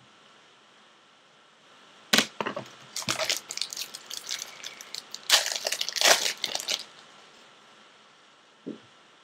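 Foil wrapper of a trading card pack being torn open and crinkled by hand: a sharp crack about two seconds in, then crackling rustle for about four seconds. A soft knock near the end.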